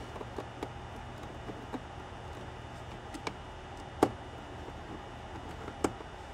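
Small screwdriver turning screws into the frame of a Raspberry Pi cluster case, with light clicks and taps as the tool and parts are handled, and two sharper clicks about four and six seconds in, over a steady low hum.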